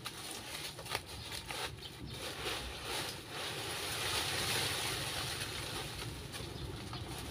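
Dry fallen leaves and twigs rustling and crackling as an armful is scooped up from a leaf pile. There are a few sharp snaps in the first two seconds, and the rustle is loudest about four to five seconds in.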